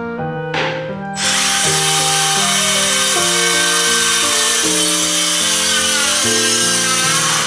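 Makita circular saw spinning up about a second in, then running steadily as its blade rips lengthwise through a sheet of plywood. Background music with piano-like notes plays underneath.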